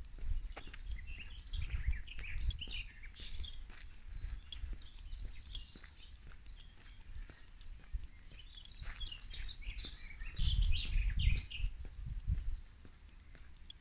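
Songbirds chirping and singing in short phrases, busiest in two spells, with an uneven low rumble underneath that swells about ten seconds in.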